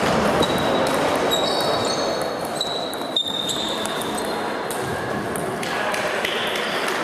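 Table tennis balls clicking off bats and tables in a large, echoing sports hall with several matches going on, over steady background chatter. A few short high squeaks come about one and a half to three and a half seconds in.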